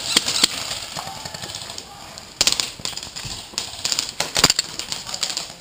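Airsoft gunfire: sharp cracks in quick runs, with clusters at the start, about two and a half seconds in, and again around four seconds in.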